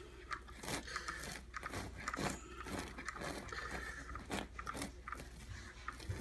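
Irregular crackling and crunching scrapes as a hot-melt glue gun's T-nozzle is dragged across carpet backing, spreading thermal glue, over a steady low hum.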